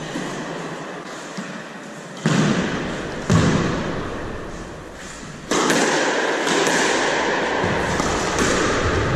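Squash ball being struck by a racket and hitting the court walls, two sharp echoing thuds about two and three seconds in. From about halfway a louder steady din sets in beneath the play.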